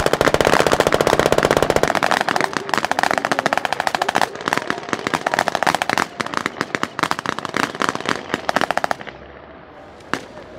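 Type 87 reconnaissance vehicle's coaxial 7.62 mm machine gun firing blanks in long rapid bursts. The bursts break up after about two seconds, die away around nine seconds, and a couple of single shots follow near the end.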